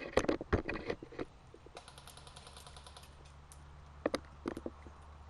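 Airsoft guns firing: a cluster of sharp clacking shots at the start, then a rapid, even full-auto burst of about a second from an electric airsoft rifle, and a couple of single shots near the end.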